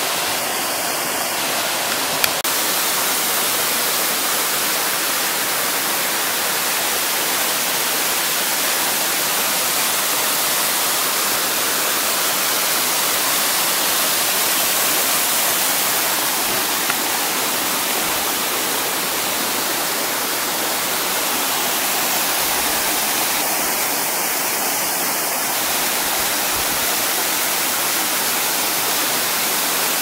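Waterfall cascading over rock slabs: a loud, steady rush of falling water.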